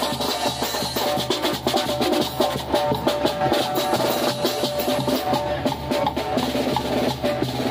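Mexican street brass band (banda) playing: a bass drum with a cymbal mounted on it, a snare drum, a sousaphone and horns, with a steady beat of drum hits under held brass notes.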